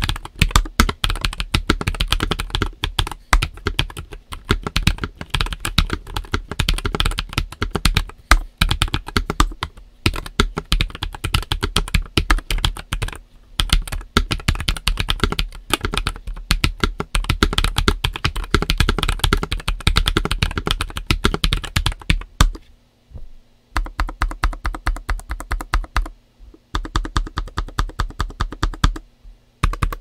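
Typing on a NuPhy Air96 low-profile mechanical keyboard with Gateron x NuPhy Wisteria switches and nSA PBT keycaps: rapid, continuous key clacks, broken by a few short pauses in the last third.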